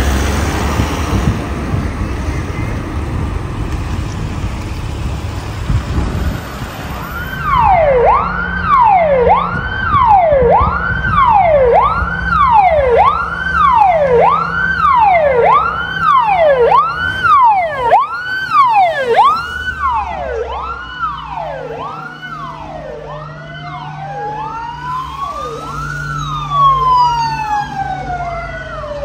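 Vehicle siren: after an engine rumble, it starts about a quarter of the way in with a fast wail, rising and falling roughly once a second. In the last third it changes to a slow wail that rises and falls over several seconds.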